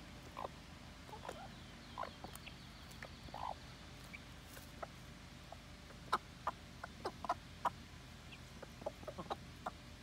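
Buff Orpington hen clucking softly in short calls while foraging, a few at first and then a quicker run of them in the second half, with light clicks of pecking in wood-chip mulch.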